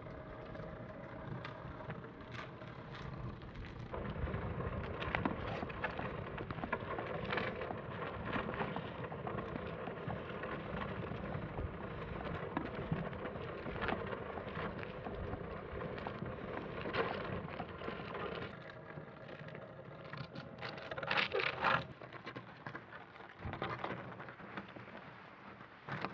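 Footsteps crunching and rustling through dry leaves and brush, with many irregular crackles and a louder cluster of crackles about three-quarters of the way through.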